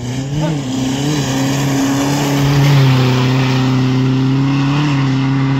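Desert rally jeep's engine running hard at high, steady revs, with a brief rise and fall in pitch about half a second in.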